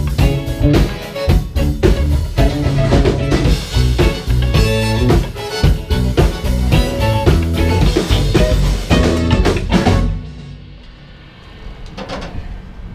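Rock band rehearsing an instrumental passage: distorted electric guitar, bass guitar and drum kit playing loudly together. About ten seconds in the band stops and the sound drops to a quiet low rumble.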